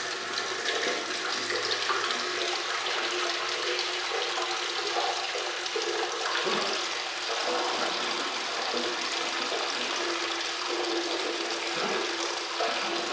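Engine coolant pouring and splashing out of the disconnected oil-cooler hose of a 2010 Audi A6 as the cooling system is drained, a steady rush of liquid.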